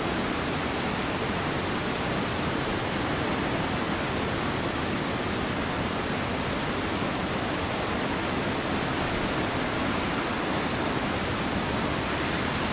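Steady roar of water from Shōmyō Falls, a very tall waterfall, as a dense, even rush with no breaks.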